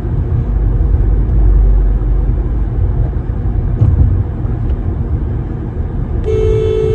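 Steady low road rumble inside a moving car, then near the end a car horn sounds once, held for about a second.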